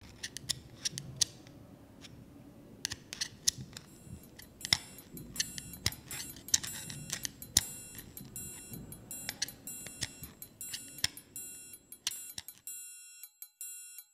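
Irregular sharp clicks and ticks, several a second, over a faint low hum. They stop about a second and a half before the end.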